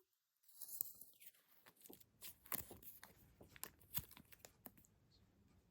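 Faint, irregular clicks and crinkles of stationery and its packaging being handled.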